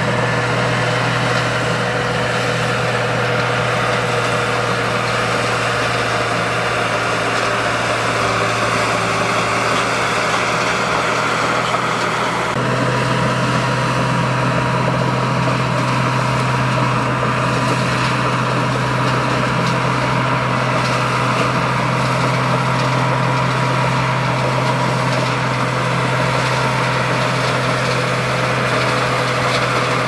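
Heavy diesel road-construction machinery running steadily, with a low engine drone; the engine note shifts abruptly about twelve seconds in.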